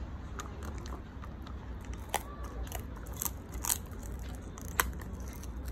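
Keeshond puppy chewing a crispy chicken foot: irregular sharp crunches and cracks of the bone and skin breaking, the loudest about two to five seconds in, over a low steady rumble.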